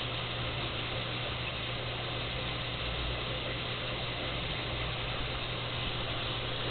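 Aquarium pump or filter running: a steady low hum with a constant hiss.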